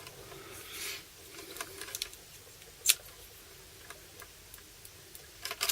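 Small clicks and light rustling from handling a small electrical tester and its crocodile clip, with one sharper click about three seconds in.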